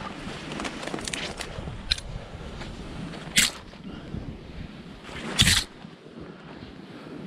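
Skis running through fresh powder snow, a steady hiss with wind on the microphone, broken by three brief sharp sounds, the loudest about five and a half seconds in.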